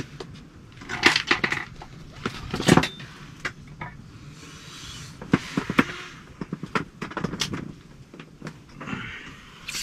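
Rustling of clothing with a series of sharp clicks and knocks as a person shifts on the tent floor and picks up an ice-fishing rod at the hole. The loudest knocks and rustles come about a second in and near three seconds in.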